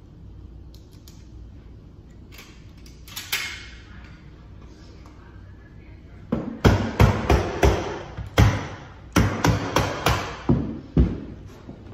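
A quick, irregular run of a dozen or so sharp knocks starting about six seconds in, from a tool fastening carpet onto a stair.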